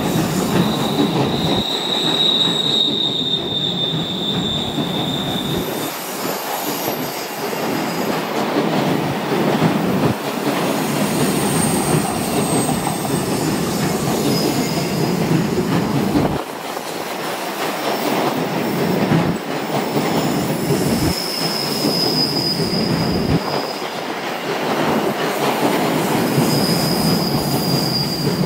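Freight train of double-deck car-carrier wagons rolling past at close range: a steady rumble of wheels on rail, with high wheel squeal on the curve coming and going several times.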